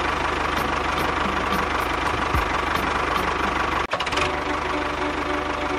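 Tractor engine running steadily with a rapid knocking putter, cutting out for an instant about four seconds in.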